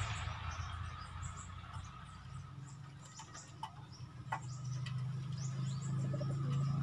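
Outdoor background of small birds twittering, with a faint steady high drone, and a low hum that grows louder in the last couple of seconds.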